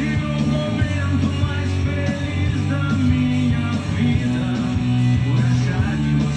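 Rock song playing, with guitars, at a steady level.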